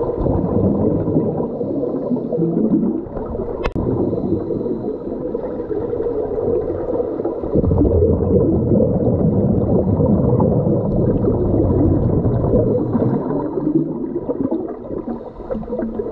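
Muffled rush of water heard underwater, with the dull, bass-heavy sound of a microphone below the surface while divers swim past. It gets louder from about seven and a half seconds in to about thirteen seconds, and a single sharp click comes about three and a half seconds in.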